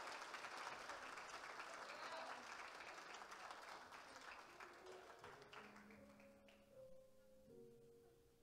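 Audience applause fading away. Soft music with held notes comes in faintly about two-thirds of the way through.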